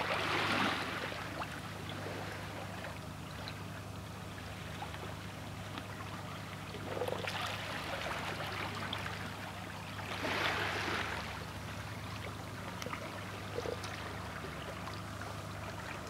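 Small waves of a calm sea lapping in the shallows, with soft swells of wash near the start, about seven seconds in and about ten seconds in. A steady low hum runs underneath.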